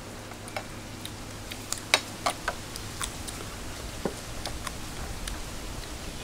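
Irregular clicks and smacks of people eating by hand, with lips smacking and chewing, and a sharper click about two seconds in.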